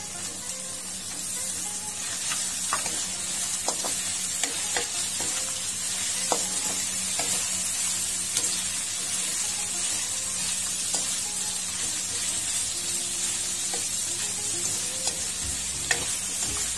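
Pork and whole shrimp sizzling as they are stir-fried in a steel wok, with a metal spatula scraping and clicking against the pan now and then.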